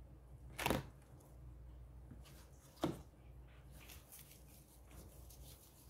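Two light knocks about two seconds apart as small objects are set down on a tabletop, with faint rustling from gloved hands handling them over a low steady hum.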